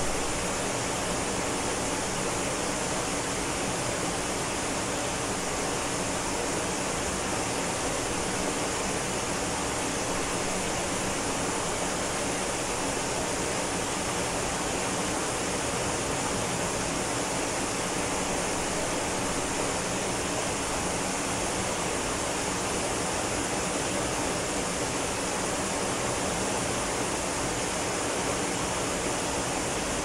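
Tall waterfall falling down a rock face into a plunge pool: a steady, even rush of water that does not change.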